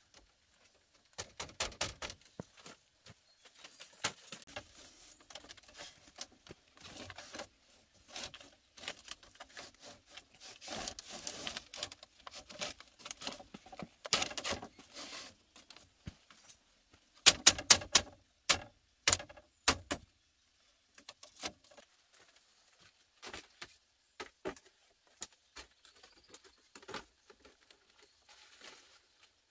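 Split-bamboo strips clattering, knocking and scraping as they are handled and fitted against a bamboo wall frame, with irregular clicks and rustling. A quick run of loud, sharp knocks comes a little past the middle.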